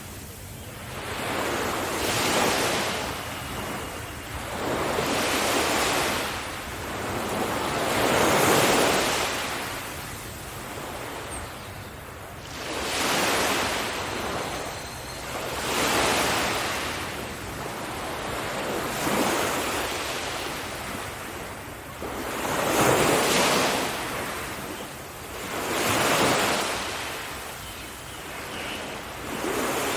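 Sea waves breaking on a beach: the surf swells and washes back about every three seconds, around nine surges in all.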